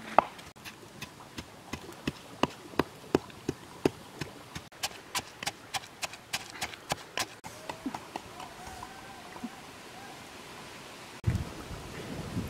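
Pestle pounding red chilies into a paste in a mortar: steady wet knocks about three to four a second, stopping about two-thirds of the way through. A low rumble of wind on the microphone comes in near the end.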